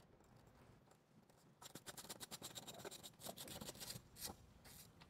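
Socket ratchet clicking in quick, faint runs as a 10 mm bolt at the fender's wheel-arch edge is backed out, starting about one and a half seconds in and stopping about four seconds in.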